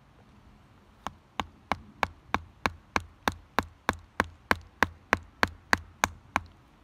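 A 7-inch Anglo Arms knife chopping over and over into the end of a wooden staff to cut a shelf in it. About eighteen sharp knocks, roughly three a second, start about a second in and stop shortly before the end.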